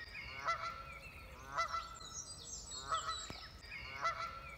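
Goose honking repeatedly, a short call about once a second, with fainter high chirps of small birds partway through.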